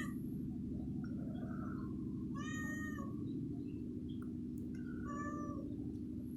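Domestic cat meowing: one clear meow about two and a half seconds in and a fainter, shorter one around five seconds in, over a steady low background hum.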